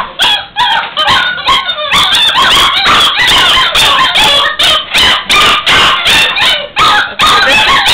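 A litter of puppies barking, yipping and whimpering together, many high calls overlapping almost without a break.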